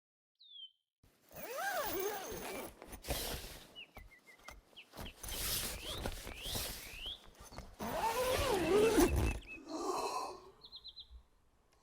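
Morning nature ambience: small birds chirping in short rising and falling notes over a rustling noise with clicks, and twice a lower wavering sound with several tones.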